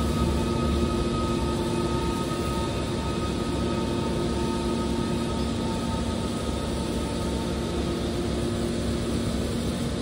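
The hydraulic power unit of a scrap metal baler running steadily: an even machine hum with several constant whining tones and no change in pitch.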